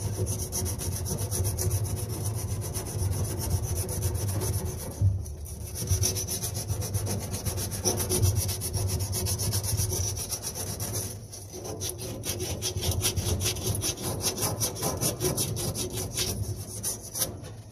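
Emery cloth rubbed rapidly back and forth by hand over the guide that a Kenmore dryer's drum-support wheel mounts on, smoothing it before the new wheel goes on. The strokes pause briefly about five seconds in and again about eleven seconds in.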